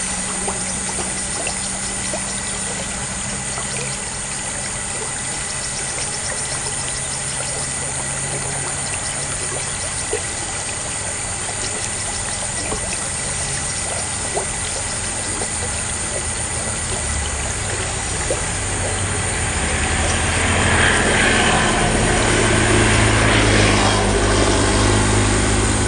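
Steady outdoor background noise with a low hum, then an engine growing louder for several seconds near the end as a motor vehicle passes close by.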